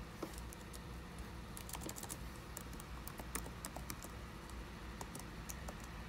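Typing on the HP Envy m6 x360 laptop's keyboard: short, light key clicks in an irregular run, several a second.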